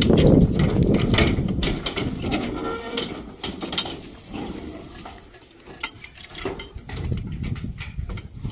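Metal rear doors on a livestock truck's cargo box being unlatched and swung open: a run of sharp clanks and clicks, mostly in the first four seconds. Cattle inside the box are heard as well.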